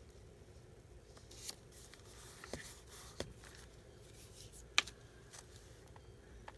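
Faint rustling of paper and sticky notes being handled on a desk, with a few sharp clicks or taps, the loudest about three-quarters of the way through.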